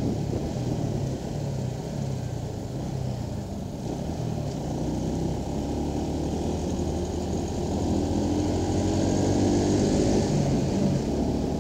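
Motorcycle engine running while riding along in traffic, its note steady at first and growing louder in the second half.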